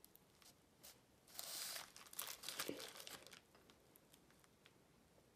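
A plastic zip-top bag with a magnet inside, crinkling in the hand: a short rustle about a second and a half in, then a few sharp crackles, with near silence either side.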